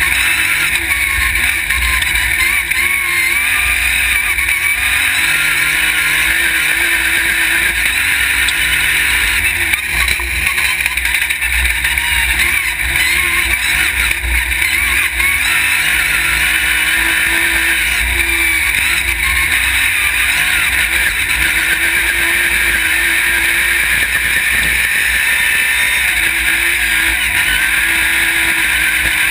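Off-road race buggy's engine running hard under way, its pitch rising and falling as the driver accelerates and lets off, mixed with a steady rush of wind and tyre noise on the dirt. It is heard from a camera mounted on the buggy.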